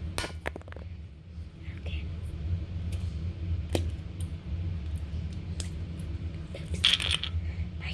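Slime and putty being squished and stretched by hand, giving scattered wet clicks and pops with a louder squelching burst near the end, over a steady low hum.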